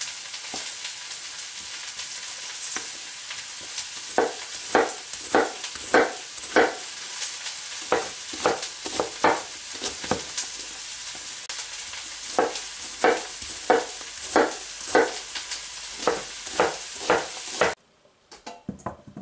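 Chef knife chopping a red onion on a bamboo cutting board: a few scattered knocks, then a steady run of sharp blade-on-board strikes at about one and a half to two a second over a constant hiss. The sound cuts off abruptly near the end.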